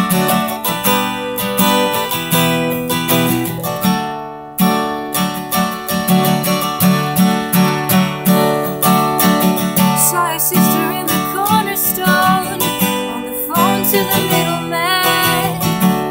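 Steel-string acoustic guitar strummed in a steady chord rhythm, with a short break about four seconds in. A woman's singing voice comes in over the strumming about ten seconds in.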